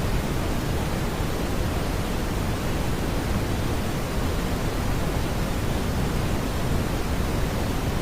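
Steady synthetic brown noise: an even, unchanging hiss weighted toward the low end, like a deep rumble, with no tones or events.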